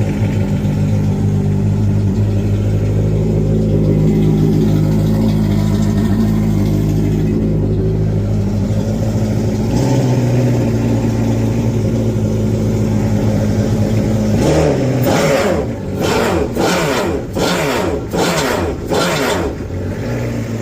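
2024 Yamaha GP HO WaveRunner's 1.9-litre four-stroke engine, breathing through a Riva free-flow exhaust and air intake, idling steadily just after start-up. About fourteen seconds in it is revved in a string of quick throttle blips.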